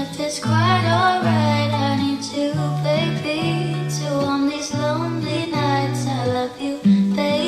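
Background song: a woman singing over plucked guitar and a steady bass line.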